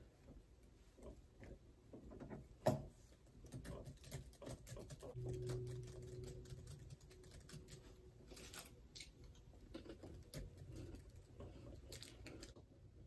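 Faint, irregular clicking of typing on a MacBook laptop keyboard, with one louder knock about three seconds in.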